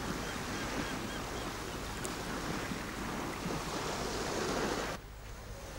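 Waves washing on a shore as a steady rush of surf, with a few faint bird calls. The sound drops away suddenly about five seconds in.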